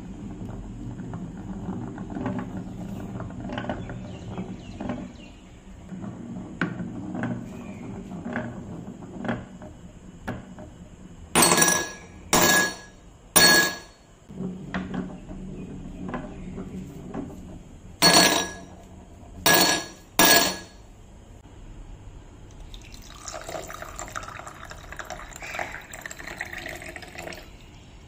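Glass marble rolling down the winding groove of a textured white marble-run track with a low rumble and light ticks, then six loud glass clinks in two groups of three as marbles drop into a wine glass. Near the end, water is poured into the glass for a few seconds.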